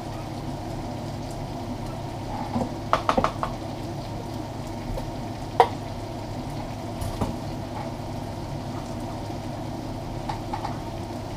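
Beef chunks sizzling steadily as they brown in a stainless stock pot, with a knife clicking on a cutting board as celery is diced: a quick run of three or four chops about three seconds in, then single taps now and then.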